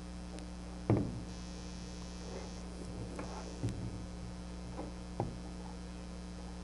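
A metal mill XY-table assembly is set down and handled on a wooden table: one sharp knock about a second in, then a few lighter knocks. A steady low hum runs underneath.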